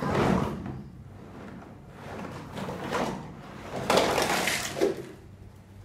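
A cardboard toy box scraping and rustling as it is pulled up, and a jumble of plastic toy kitchen pieces spilling out of it onto a blanket. The noisy bursts come in three goes, the loudest and longest about four seconds in, ending in a sharp click.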